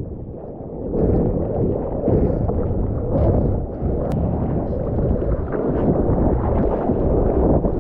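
Shorebreak waves and whitewater rushing and churning close around the microphone at water level. The noise is quieter for about the first second, then fuller as a wave breaks and washes through, with one brief tick about four seconds in.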